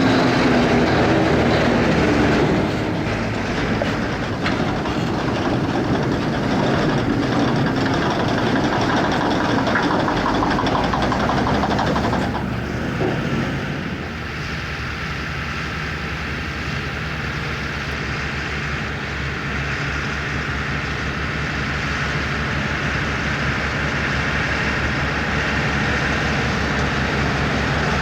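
Fendt tractor engines running in the field with the clatter of a trailed Grimme potato harvester working. The sound changes abruptly about twelve seconds in, to a steadier engine note with an even low pulse.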